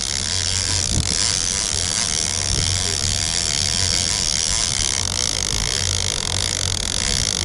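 Boat engine running steadily at trolling speed, a constant low drone under a loud, even rush of wind and water.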